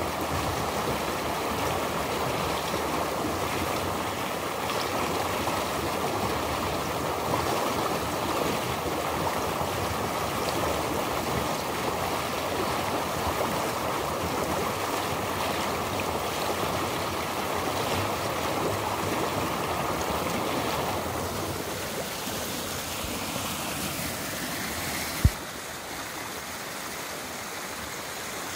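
Rushing water of a mountain stream, a steady even rush that eases off about three-quarters of the way through. A single sharp knock comes near the end.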